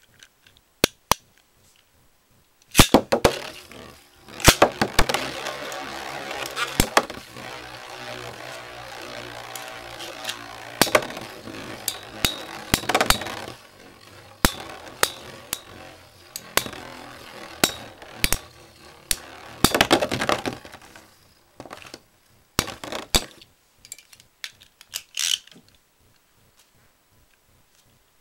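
Metal Beyblade spinning tops battling in a stadium: a sharp clack as they are launched, then a steady whir broken by many sharp metal clashes, until the spinning dies away about 21 seconds in, followed by a few scattered clicks.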